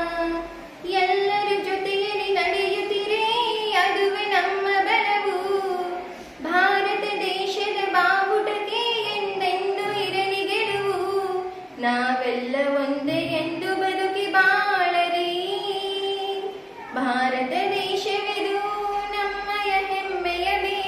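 A girl singing a Kannada patriotic song solo and unaccompanied, in long held phrases with a short pause for breath between each, four times.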